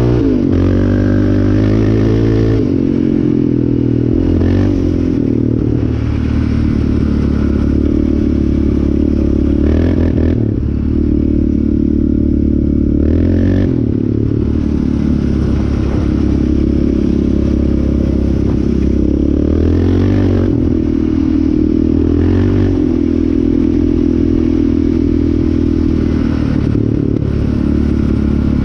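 Yamaha Raptor 700R's single-cylinder four-stroke engine running under load, its revs rising and falling several times with throttle and shifts, with rattling and scraping from the quad over rough ground.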